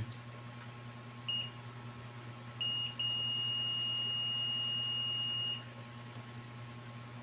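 Multimeter continuity beeper: a few short, high beeps, then a steady beep lasting about two and a half seconds as the probes make contact across a connection that conducts.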